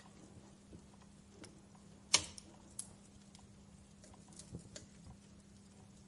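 Wood fire crackling in a fireplace: scattered sharp pops and snaps, the loudest a little after two seconds in, over a faint steady background.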